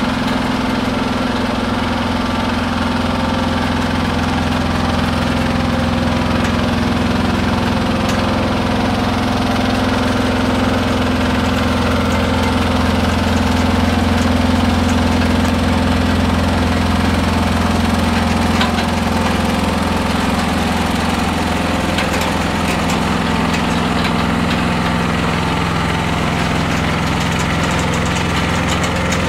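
Diesel engine on a slow-moving heavy-load train running steadily, a low drone whose tone shifts slightly about halfway through.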